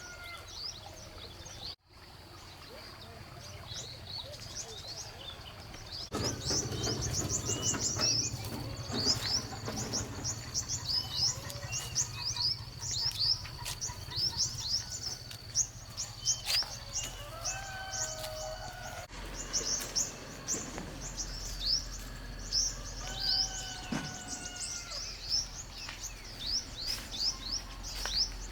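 Many small birds chirping and twittering in quick short notes, with a few longer whistled calls. A thin, steady high tone runs under them for much of the time, and the sound breaks off abruptly a couple of times.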